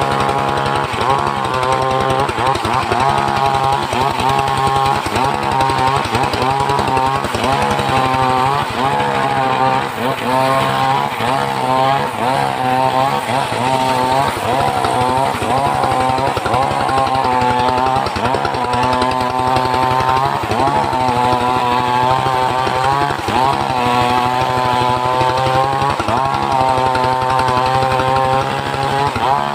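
Engine of a homemade circular-saw rig running under load, its pitch sagging and recovering every second or two as the blade works through a log.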